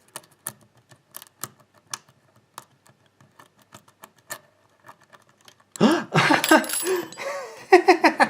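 Light, irregular metallic clicks and ticks of a hook pick and tension wrench working the spool pins inside a pin-tumbler lock. About six seconds in, a person's voice breaks in loudly, laughing and exclaiming as the lock opens.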